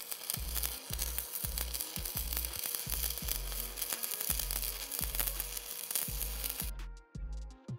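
Stick-welding arc from a Miller XMT inverter crackling and sizzling steadily as the rod burns, stopping abruptly near the end when the arc is broken. Background music with a steady bass beat plays underneath.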